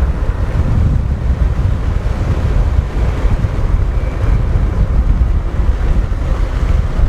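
Heavy wind buffeting the microphone, a steady low rumble, as from riding on a moving motorbike.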